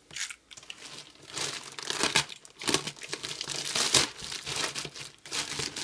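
Grey plastic postal mailer bag being torn open and crumpled by hand: irregular crinkling and rustling with short tearing rips.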